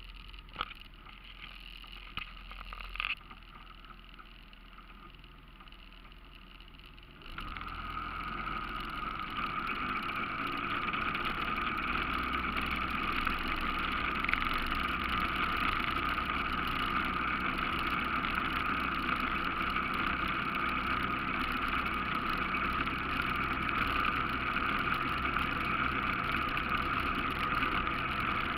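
ATV running as it rides along, with a few clicks in the first seconds; about seven seconds in the engine and ride noise gets louder and then stays steady.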